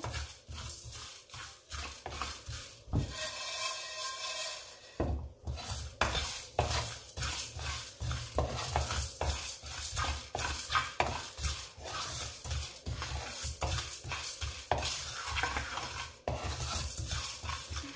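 A spoon stirring and scraping whole spices (fennel, cumin and black pepper) round a pan as they roast on low heat, in a long run of quick repeated strokes. The spices are being turned until golden and fragrant.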